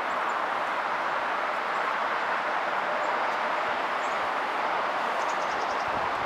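Steady outdoor rushing background noise, with a brief rapid series of high chirps about five seconds in.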